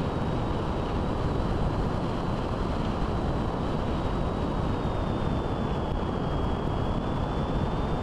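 Airflow rushing over the microphone of a camera on a radio-controlled model airplane in flight, with a steady high whine from the plane that dips slightly in pitch in the second half.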